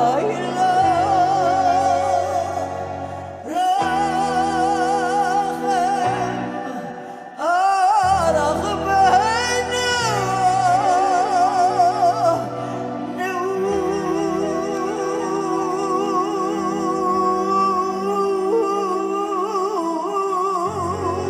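Slow cantorial-style Hebrew song performed live: a woman sings long notes with vibrato over sustained keyboard and bass chords, with a flute, and sweeps up in a quick run about nine seconds in.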